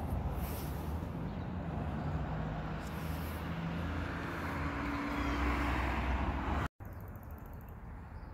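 Street noise outdoors: a motor vehicle's engine running and a steady low rumble of traffic. The sound drops out completely for a moment near the end.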